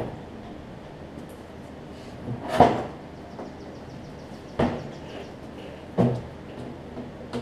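Large hollow plastic bagger chute of a riding mower knocking and clattering as it is worked loose and lifted off the deck: four separate clunks, the loudest about two and a half seconds in, the rest spaced a second or two apart.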